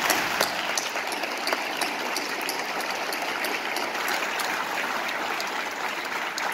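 A large seated audience applauding steadily, with sharp individual claps from people close by.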